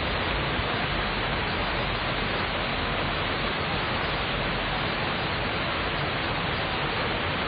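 Steady city rain: an even, unbroken hiss of falling rain with no thunder.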